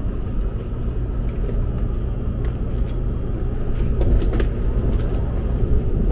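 Taiwan High Speed Rail train running, heard from inside the passenger car as a steady low rumble, with a few light clicks about four seconds in.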